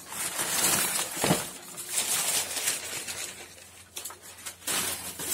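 Packaging rustling and crinkling as a parcel is unpacked by hand, in uneven bursts, with a sharper crunch about a second in.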